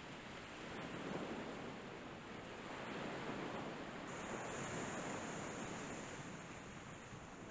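Sea surf washing onto a beach: a steady rushing that swells and eases every couple of seconds.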